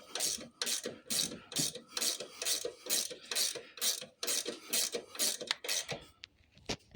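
Small hand brush scrubbing brake parts in quick back-and-forth strokes, about three a second, stopping about six seconds in.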